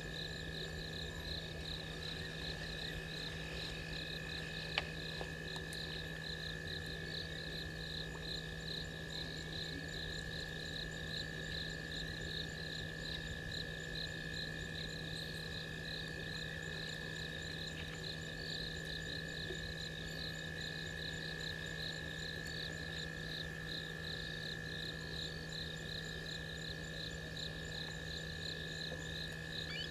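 Night insect chorus: crickets chirping in a steady rhythm, about two pulses a second, over a constant high drone and a low steady hum. A single sharp click sounds about five seconds in.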